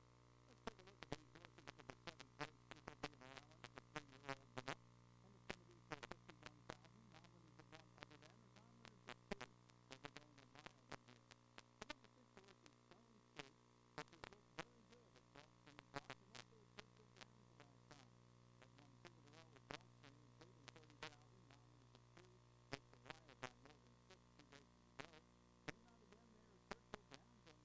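Near silence: a low steady electrical hum with many sharp clicks and crackles scattered irregularly throughout.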